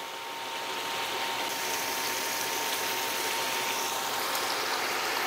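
Ground beef, onions and peppers sizzling steadily in a frying pan, with a faint steady high tone underneath.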